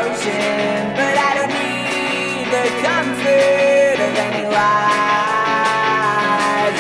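Background music: a song with a sung melody over guitar and a steady beat.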